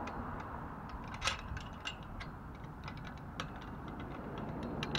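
Small irregular metal clicks and ticks as hands fit a bolt and lock nut into a pole clamp on a steel trampoline frame, one click standing out about a second in.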